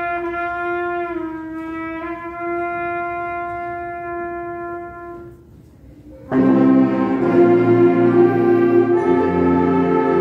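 School concert band of brass and woodwinds: a single note is held for about five seconds and fades away, then about six seconds in the full band comes in together, louder, with many notes at once.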